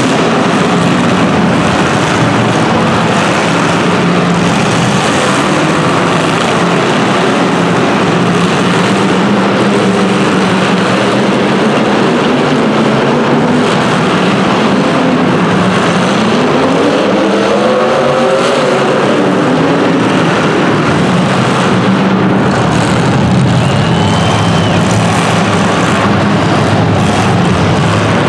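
Race car engines running continuously through a heat, with one engine rising and falling in pitch as it revs about two-thirds of the way through.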